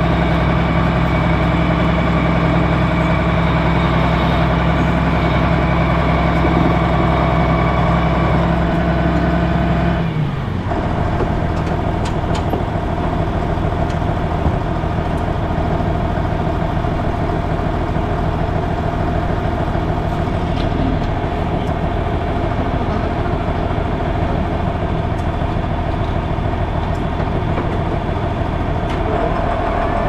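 Engine of farm machinery running steadily. About ten seconds in its pitch drops, then it runs on at a lower, steady note.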